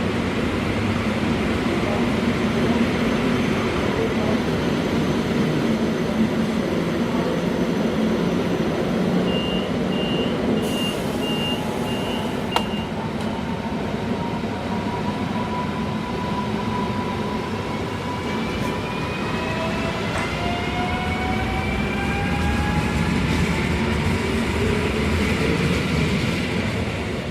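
Railway station ambience: a steady rumble of trains and station noise. Near the middle comes a run of six short high beeps, about two a second, then a single sharp click. Over the last ten seconds a whine rises steadily in pitch.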